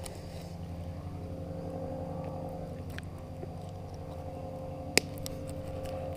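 A steady low hum like a distant motor, with a few faint clicks as a knife blade is worked into a small fish's head, spiking its brain, and one sharp click about five seconds in.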